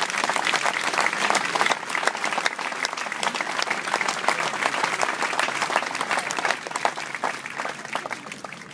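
Audience applauding: a dense, sustained clapping that tapers off near the end.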